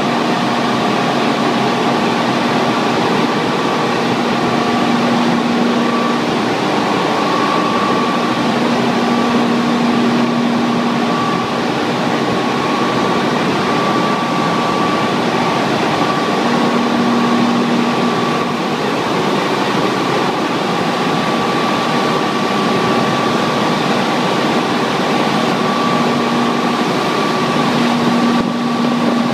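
Pelton-wheel hydro turbine and its generator running at speed: a loud, steady rushing noise with a low hum and a higher whine.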